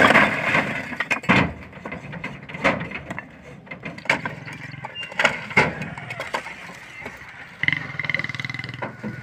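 Brick wall being pushed over by hand: bricks tumble and clatter onto a rubble pile, followed by several more separate knocks of falling bricks. Near the end a steady droning sound sets in.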